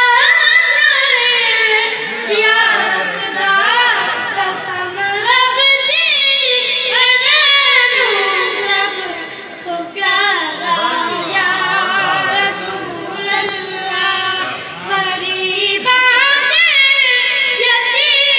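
Two young boys singing a Punjabi naat, a devotional song in praise of the Prophet, into a microphone. The long melodic lines bend and ornament continuously, with no instruments.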